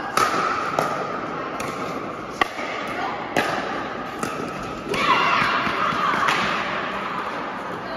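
Pickleball rally: hard paddles popping the plastic ball back and forth, sharp hits under a second apart that echo around a large indoor hall. Voices and shouts rise over it past the middle as the point ends.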